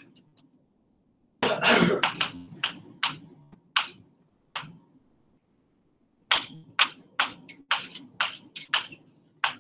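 Marker writing on a board: a run of short, sharp strokes and taps as letters are written, with a louder stretch of handling noise about a second and a half in.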